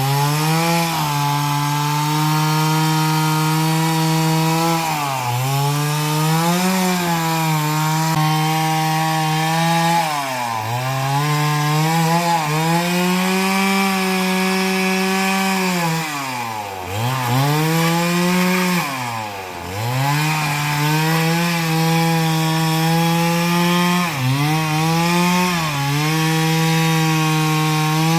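Two-stroke chainsaw running at high revs while cutting a coconut palm trunk. The engine pitch sags and recovers every few seconds as the chain loads in the cut, dropping deeply twice about two-thirds of the way through.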